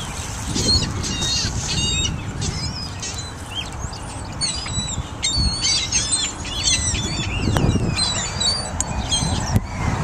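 A feeding flock of gulls, Canada geese and wild turkeys, with many short, high, overlapping bird calls and the flapping of wings as gulls take off and land, over a steady low rumble.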